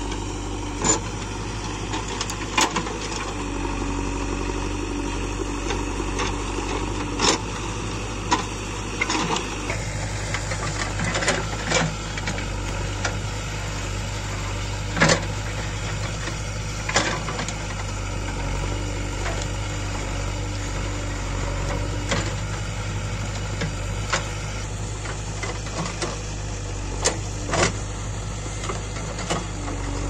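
JCB 3DX backhoe loader's diesel engine running steadily under hydraulic load as the rear backhoe arm digs soil. Sharp, irregular clanks from the arm and bucket come every few seconds.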